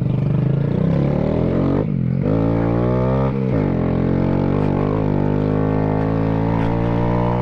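Honda Grom motorcycle's 125 cc single-cylinder engine under way: its pitch rises as it accelerates, drops off briefly twice in the first few seconds as gears change, then holds steady at a cruise.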